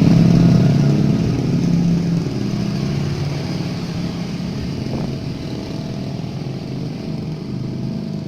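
A small engine running steadily, slowly getting quieter.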